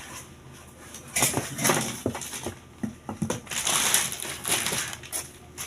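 Plastic wrapping around a new kitchen grinder crinkling and rustling as it is handled, in uneven bursts with a few light clicks.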